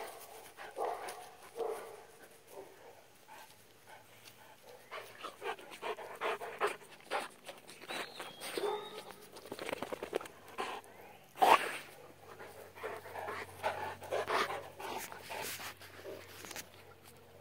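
Large black long-haired dogs panting close by, with scuffling and rustling as they move about on grass. A single sharp knock about two-thirds of the way through is the loudest sound.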